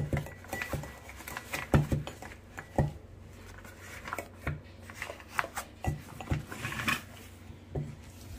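Irregular light clicks and knocks of a metal spoon against a glass mixing bowl and a drinking glass, with the rustle of a piping bag being filled with guacamole and folded shut.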